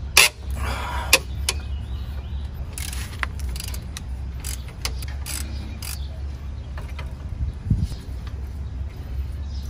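Breaker bar and socket being worked on a seized rear brake caliper bracket bolt: a run of sharp metallic clicks and clanks as the tool is fitted and strained against the bolt, over a steady low hum.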